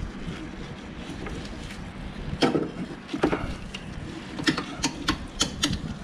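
Irregular sharp clicks and knocks of hand tools and metal parts being worked on under a car's hood, with most of them in the second half.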